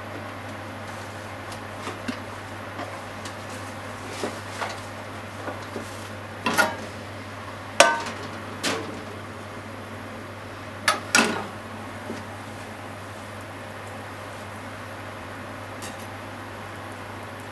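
Metal frying pan clunking and scraping against the gas stove's pan grate as it is lifted and tilted to spread melting butter: a scattered series of knocks, loudest about eight and eleven seconds in, over a steady hiss.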